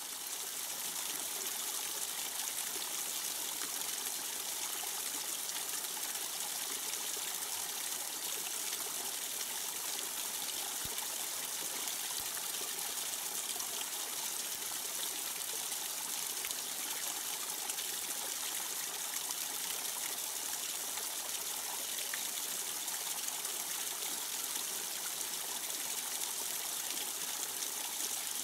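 Steady trickling and splashing of water running down the rock face of a paludarium's artificial waterfall into the pool below.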